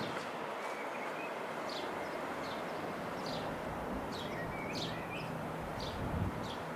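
Distant AgustaWestland AW109SP Grand New twin-turbine helicopter passing overhead, heard as a steady drone. Small birds chirp repeatedly over it.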